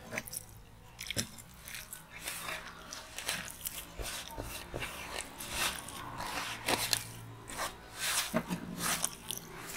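A hand squeezing and mixing a thick fish-fry batter of rice flour, corn flour, maida, ground spices and a little water in a large aluminium tray, in irregular strokes.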